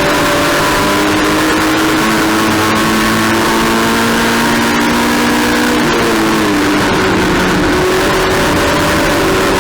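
Race car engine running hard at steady revs, its pitch stepping up about two seconds in and dropping about six seconds in, over a steady rush of wind and road noise.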